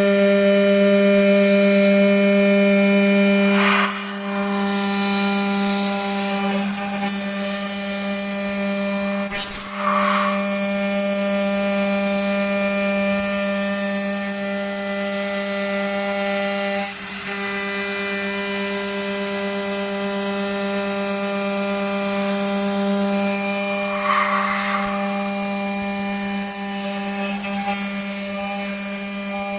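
CNC milling machine spindle running at a steady high pitch while the cutter mills a panel, with a constant tone and a ladder of overtones. The cutting sound changes slightly about 4 seconds in and again past halfway, with a brief sharp rising squeal about a third of the way through and short rougher patches as the cutter bites.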